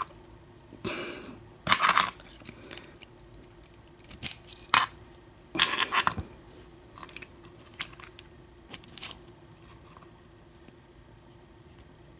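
Scattered small metallic clicks, taps and short scrapes as the American 1305 padlock's lock cylinder is taken apart with hand tools, dying away about three-quarters of the way through.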